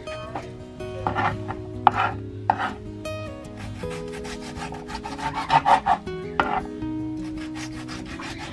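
Chef's knife slicing and dicing a tomato on a wooden cutting board: clusters of quick cuts and taps on the board, strongest about a second and two seconds in and again around five to six seconds in, over soft background music.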